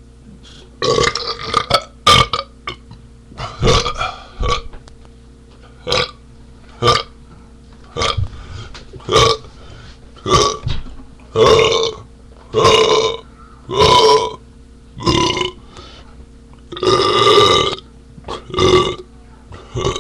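A man burping over and over: about twenty short, loud burps in a row, with a longer drawn-out one near the end.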